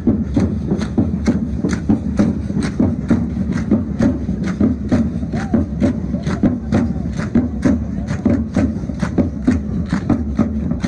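Rhythmic percussion of a matachines dance troupe: sharp, even strikes at about three a second, over the chatter of a crowd.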